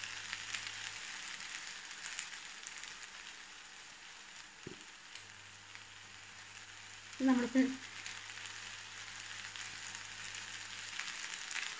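Shrimp and pineapple fried rice sizzling steadily in a frying pan on the heat, with a light crackle.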